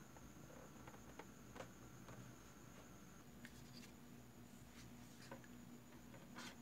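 Near silence with a few faint, scattered clicks and light rubbing of hard plastic scale-model parts being handled and test-fitted.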